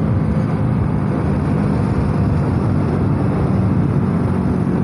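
Hero Splendor Plus motorcycle's small single-cylinder engine running steadily on the move, with wind rushing over the microphone.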